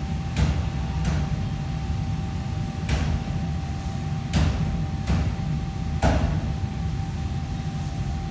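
Kitchen clatter: six sharp, unevenly spaced knocks of cookware being handled, over a steady low rumble and a faint steady high hum.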